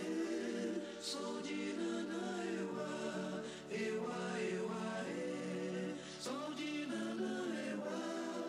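Background music with several voices singing together over a held low note.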